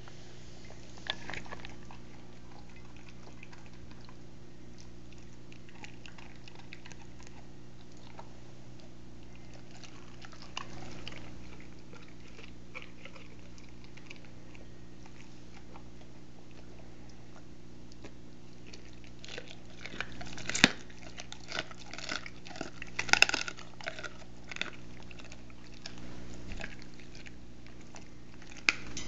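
A large dog chewing and biting on a raw turkey neck: scattered wet bites and chews, busiest and loudest about twenty seconds in.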